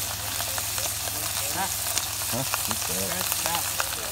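Pork roasts sizzling as they sear in a hot cast-iron Dutch oven: a steady frying hiss with small crackles and pops.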